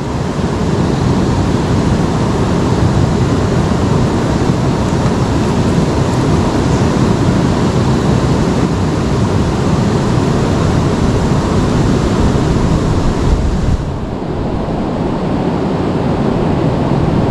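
Steady rushing of river water close to the microphone. About fourteen seconds in, it suddenly turns duller.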